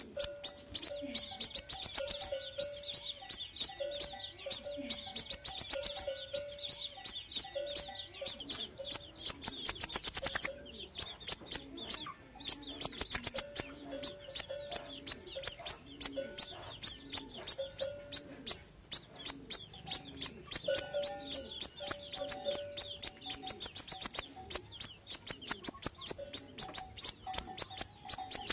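Sunbird song on a lure recording: fast trains of high, sharp chirps repeated over and over with fainter, lower whistled notes beneath, broken by a short pause about ten seconds in.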